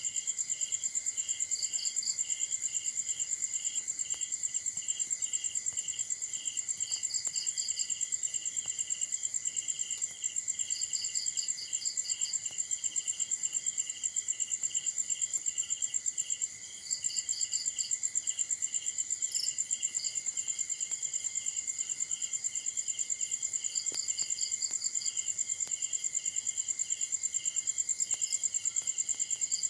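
Night insect chorus of several crickets calling at once: one a continuous high trill, another a lower chirp repeated about two or three times a second, and a third giving short trills every few seconds.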